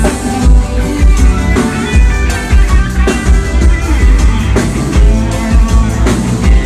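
A band playing loud music with heavy bass and drums, as at a live sound check.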